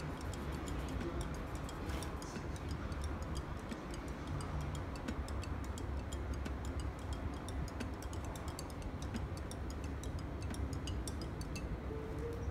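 Rapid ticking, several light ticks a second, over a steady low hum.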